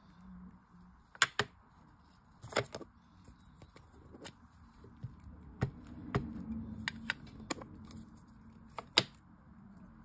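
Clear acrylic stamp block being handled and inked: a scattering of sharp clicks and taps as the block knocks against the ink pad and table, with a stretch of soft rubbing and dabbing as it is pressed onto the ink pad.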